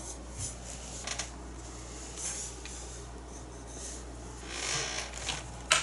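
Paintbrush strokes and dabs of acrylic paint on a canvas, faint and scratchy, with a louder brushing stroke near the end, over a steady low hum.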